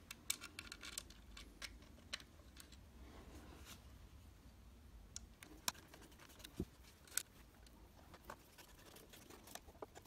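Faint, scattered small clicks and taps of metal on metal: a socket retaining screw being fitted into a chrome faceplate and an insulated screwdriver tip engaging the screw head. A few clicks in the second half are slightly sharper.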